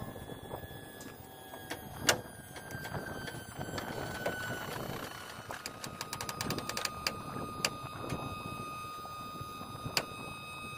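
Tow chains clinking and clanking against steel as they are handled and hooked to a wrecked semi truck's front frame. There is one sharp clank about two seconds in and a quick run of clinks around the middle, over a steady high whine.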